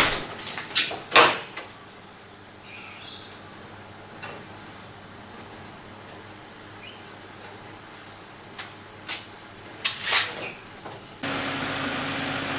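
Oven door opening with a clunk, then a few metal clicks and clinks as a part is handled inside the oven, over a steady high whine. About eleven seconds in, the sound changes to the steady hum and fan hiss of a CO2 laser engraver.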